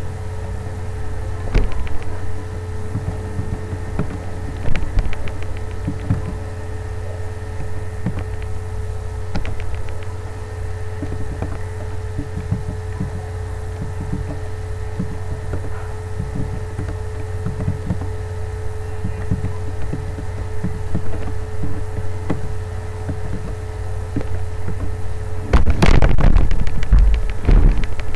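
Steady low electrical hum with a faint steady whine above it, and scattered short clicks of keyboard keys as text is typed. About 25 seconds in, a louder rough rumbling noise lasts for a couple of seconds.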